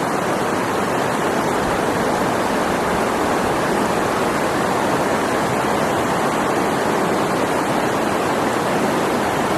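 Steady rush of a fast-flowing river, an even wash of water noise with no breaks.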